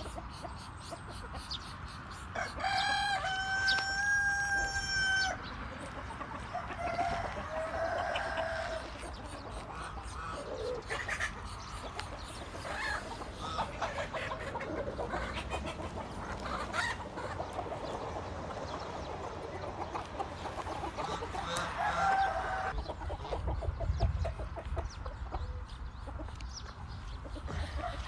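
A rooster crows once, a long call held on one pitch for about two and a half seconds, starting about three seconds in. Shorter calls from the flock follow later.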